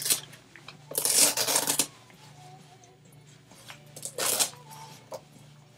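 Ankle strap of a high-top sneaker being pulled open: a rasping rip about a second long, then a shorter one about four seconds in, with the shoe handled between.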